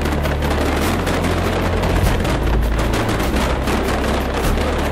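Aerial fireworks going off in a rapid, continuous barrage: dense crackling of many bursting shells over a low rumble of booms.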